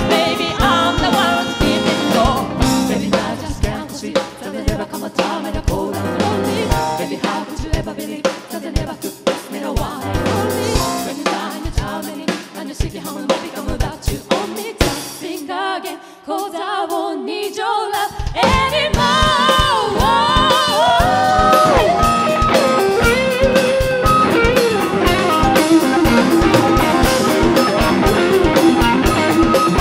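Live band playing a song: drum kit and keyboard under lead and harmony vocals. About 15 seconds in the drums and bass drop out for a few seconds, then the full band comes back in louder.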